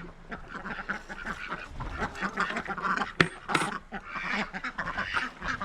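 A flock of ducks quacking, many calls overlapping, with one sharp knock about three seconds in.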